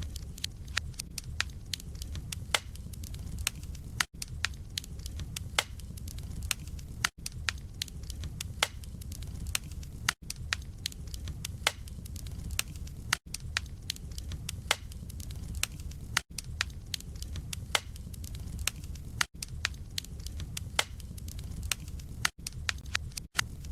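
Wood fire burning in a fireplace, logs crackling with frequent sharp pops over a steady low rumble. There are brief gaps about every three seconds.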